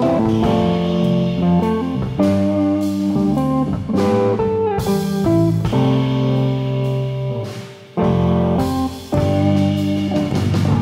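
Live jazz trio playing: a Heritage 535 semi-hollow electric guitar leads with chords and melody over bass and drum kit. The music thins out briefly about eight seconds in, then comes back.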